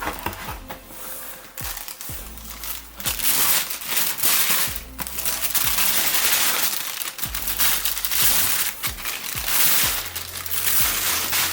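Paper crinkling and rustling loudly as a boot box is unpacked, with background music.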